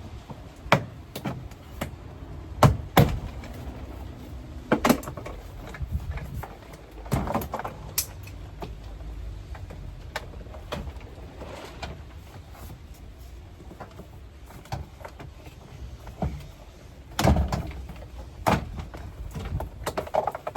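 Irregular clicks, knocks and clatter of hands working on a 2010 Honda Accord's interior door panel, with plastic trim and clips being pried and handled. A few sharper knocks stand out near the start and again toward the end.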